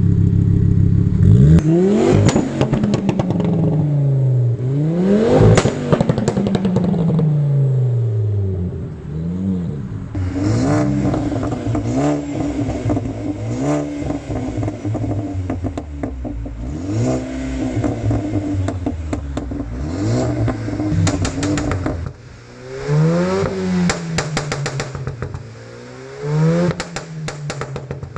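Car engine revved again and again, the exhaust popping and crackling on the overrun each time the revs fall: the sound of a pops-and-bangs ECU tune. Two long rev rises come early, then a run of smaller ones, and quick short blips near the end.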